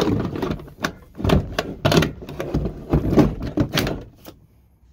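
Hard plastic Milwaukee Packout tool cases being handled and locked together: a run of knocks and clacks.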